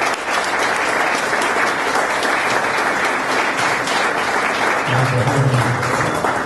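Audience applauding: a dense, steady clatter of many people clapping.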